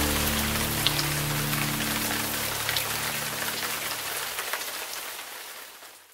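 Steady rain falling, with a few sharp single drop hits, fading away to silence near the end. Low sustained music notes sound under it and die away in the first two seconds.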